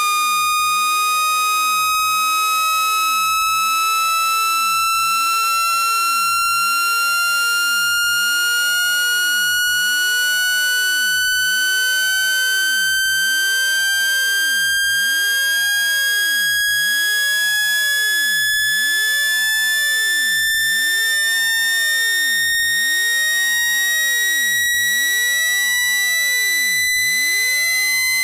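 Electronic speaker-cleaner tone for ejecting water from a phone speaker: one steady, buzzy tone that rises slowly and smoothly in pitch.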